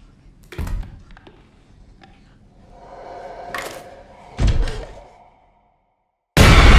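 Horror-trailer sound design: a sharp thud about half a second in, a swelling tone that builds into a heavy low hit about four and a half seconds in, then dead silence broken by a sudden loud blast near the end.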